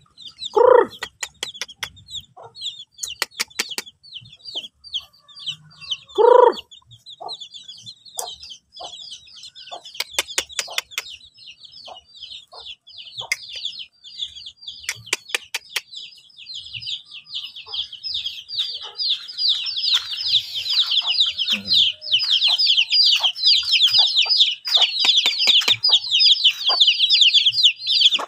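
Village chicks peeping, a dense high chirping that grows thicker and louder in the second half. An adult chicken gives two loud short calls, about a second in and again around six seconds, and there are scattered sharp clicks.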